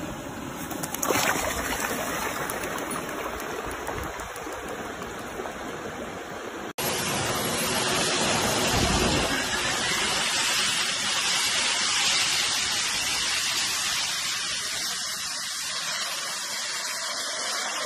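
A quieter, even rushing hiss, then after a sudden cut a louder, steady, high rushing roar of a jet suit's small arm- and back-mounted gas turbines running.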